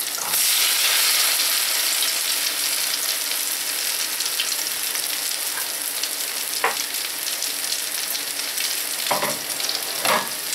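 Zucchini fritters sizzling in hot oil in an uncovered frying pan, a steady hiss that is a little louder at the start as the last fritter is turned over into the oil. Three short knocks come in the second half.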